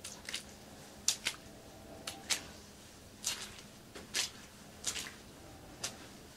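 Footsteps on water-soaked carpet: a series of short, wet squishes, about one or two a second, some in quick pairs.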